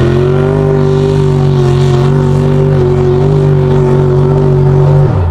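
Chevy Colorado mega truck's engine held at high, steady revs as it drives through a mud bog, then dropping off sharply near the end as the throttle is let off.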